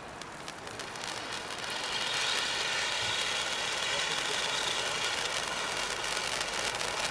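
T-Sky Machine Rifle Fountain, a 200-gram ground fountain, burning: a steady hissing spray of sparks with a fine crackle. It grows louder over the first two seconds, then holds steady.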